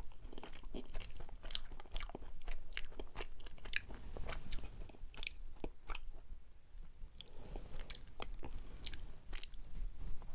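Close-up chewing of a mugwort steamed rice cake (ssuk baekseolgi) shaped like a loofah: irregular sharp, wet mouth clicks and smacks, thinning out briefly about six seconds in.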